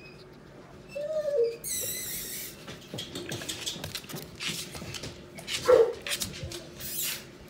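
A puppy whining and squealing: a short whine about a second in, then a high thin squeal, and a sharp yelp near the end. Claws click and scuffle on a laminate floor throughout.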